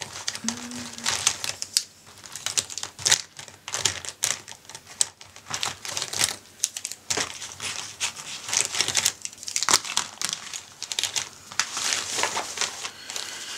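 Plastic markers and pens clicking and rattling against each other as a hand rummages through a packed fabric pencil case, with rustling of the case's fabric. The clicks come irregularly throughout.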